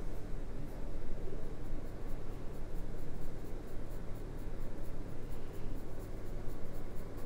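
Graphite pencil shading on drawing paper: a steady scratching of the lead on the sheet, over a steady low hum.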